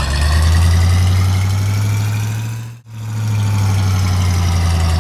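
Car engine sound effect running steadily with a deep hum, its pitch creeping slowly up. A little past halfway it cuts out for a moment, then a second engine sound of the same kind takes over as the next car drives in.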